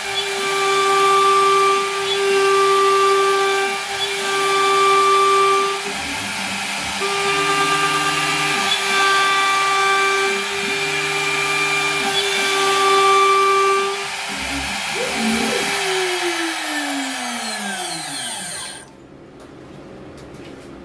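CNC router spindle running at 24,000 rpm, its 10 mm three-flute roughing end mill cutting full depth into 18 mm birch plywood in repeated passes about every second and a half. A lower axis-motor whine rises and falls with each pass. About 14 seconds in the cutting stops, and the spindle winds down with a falling whine until it stops near the end.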